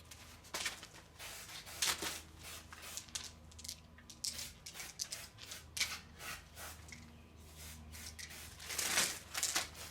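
Plastic zip-lock bag rustling and crinkling as it is handled, in irregular short bursts, with a faint steady low hum underneath.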